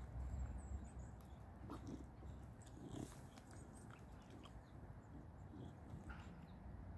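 Faint, irregular sounds from a boxer dog lying at rest on grass, a soft sound every second or so, with a low rumble in the first second.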